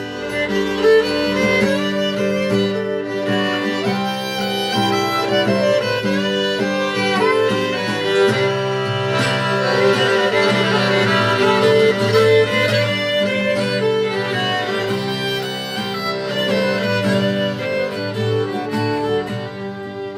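Folk ensemble playing a slow Irish-style reel: violin carrying the melody over guitar, accordion and saxophone, swelling a little in the middle.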